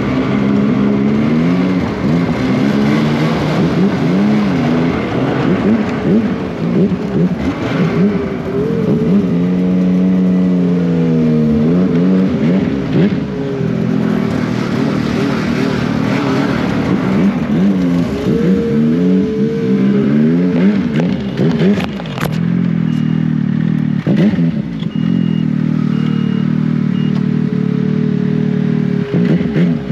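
Snowmobile engine revving up and down repeatedly as the throttle is worked, then running at a steady speed for the last several seconds.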